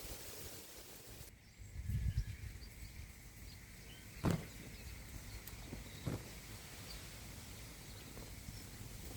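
Wind gusting outdoors, with a low rumbling swell about two seconds in, and two sharp knocks a couple of seconds apart.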